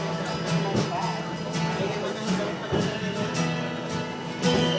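Acoustic guitar strummed live, chords ringing out between sung lines of a pop ballad.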